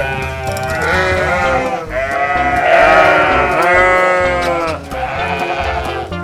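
Sheep bleating: about five long, wavering bleats one after another, close by.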